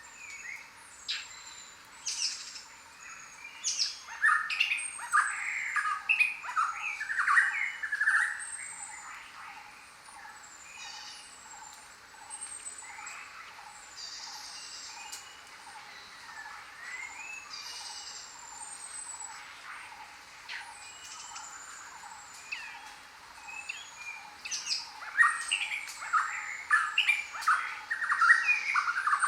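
Several birds calling and singing together in a jungle chorus: high, thin, repeated falling whistles throughout, with a loud run of quick chattering notes about four seconds in and again near the end, over a steady hiss.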